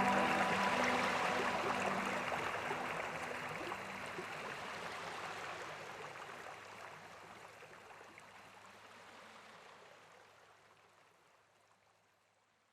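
Rushing waterfall noise fading out steadily to silence over about twelve seconds, with the last held tones of soft background music dying away in the first two seconds or so.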